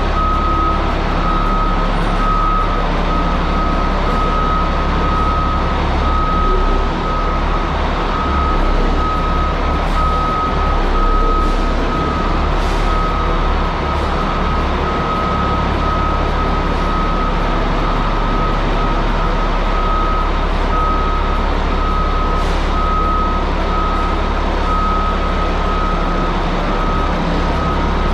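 Caterpillar 627G scraper's diesel engine running with its reversing alarm beeping, a high beep repeating evenly over the low engine sound.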